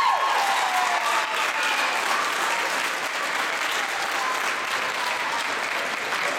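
Audience applauding steadily, a dense patter of many hands clapping that eases off slightly toward the end.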